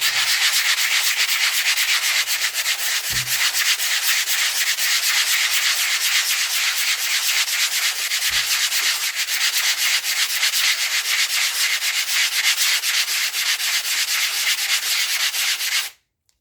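Grit-60 sanding blocks being rubbed hard in fast, continuous strokes, a loud gritty abrasive scraping that stops abruptly near the end. This is an abrasion test of the blocks' grain and foam wear.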